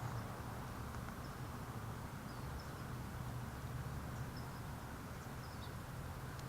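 Steady outdoor background noise with a constant low hum, and faint short bird chirps a few times.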